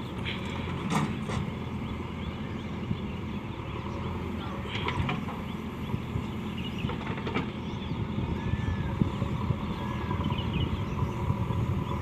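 JCB 3DX backhoe loader's diesel engine running steadily under work, with a few sharp knocks about one, five and seven seconds in.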